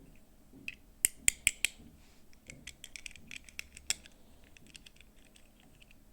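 Small plastic toy packaging being handled and opened: a quick run of sharp clicks about a second in, followed by lighter clicking and crackling that fades out.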